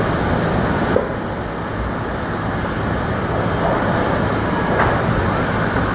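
Steady rumble of traffic and trains crossing the Manhattan Bridge.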